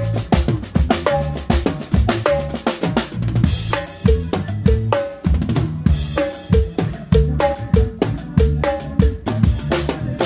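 Drum kit played live in a steady beat: snare, bass drum and cymbal hits, with sustained bass notes underneath.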